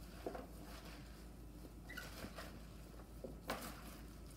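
Hands mixing salted shredded cabbage, carrots and radishes in a bowl: faint, irregular wet rustling and crunching of the vegetables, with one sharper crackle about three and a half seconds in.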